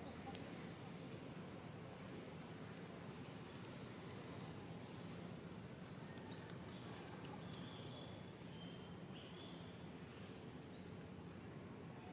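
Faint outdoor ambience with a bird's short, high, rising chirp repeated every two to four seconds, and a few brief higher peeps between.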